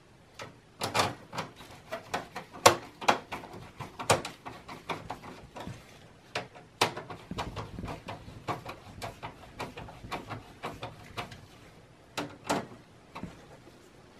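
Hand screwdriver driving a screw through the metal rear panel of a computer case into a rear system fan: a run of irregular sharp clicks and scrapes, a few a second.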